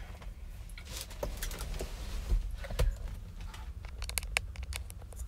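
Handling noise from a clip-on microphone being fitted to clothing: rustling and small clicks, with two louder thumps about two and a half seconds in.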